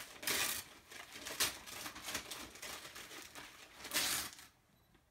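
Gift wrapping paper being torn and crinkled as a large present is unwrapped by hand: two long rips, one near the start and one about four seconds in, with rustling and small tears between. It stops about four and a half seconds in.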